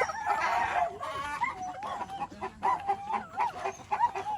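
A flock of chickens clucking, many short calls bending up and down in pitch one after another, with a loud harsh squawk just after the start.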